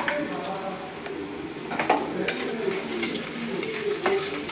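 Metal spatula stirring and scraping sliced onions and green chillies around a steel kadhai, knocking against the pan a few times, while they sizzle in hot oil.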